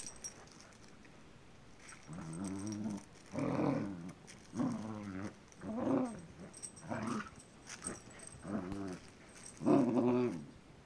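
Springer spaniel puppy growling in play, in a series of about seven short growls, each under a second and spaced roughly a second apart.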